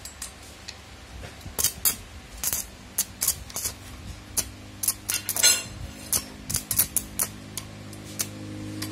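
Welding electrode holder's spring-loaded metal jaws being worked by hand, clicking and clacking shut about a dozen times at uneven intervals, with a short scrape about halfway through. A low steady hum comes in near the end.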